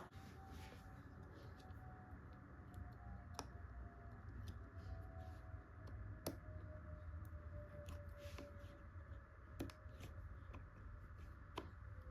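Occasional faint clicks of small tools and laptop parts being handled, over a low steady hum, with one sharper click at the very start.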